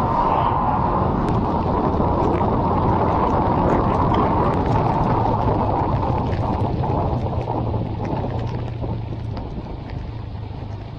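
Honda CB190R motorcycle being ridden in heavy rain: a dense rush of wind and road noise over the engine, with scattered small ticks, easing off through the second half as a steady low engine hum comes through.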